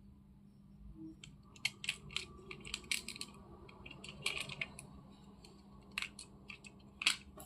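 Irregular light clicks and taps of a small diecast toy car being handled, starting about a second in.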